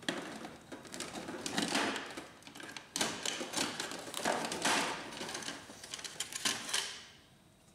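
Plastic back cover of a Canon inkjet printer being pried loose and lifted off: a run of plastic clicks and scrapes, the sharpest click about three seconds in.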